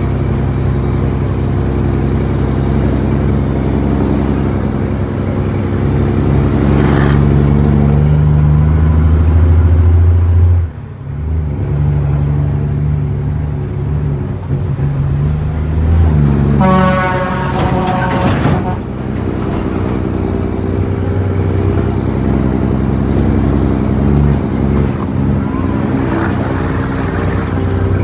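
Western Star truck's diesel engine running hard, its note building until about ten seconds in, then dropping off suddenly before picking up again. About seventeen seconds in, a horn sounds for roughly two seconds.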